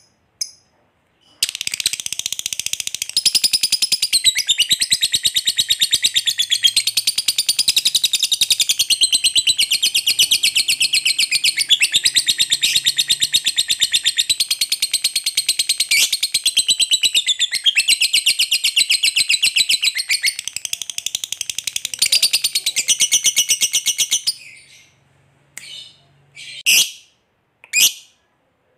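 Lovebird giving ngekek, the long unbroken rapid chattering trill that fanciers prize, high-pitched, for over twenty seconds. It then breaks off into a few single short sharp calls near the end.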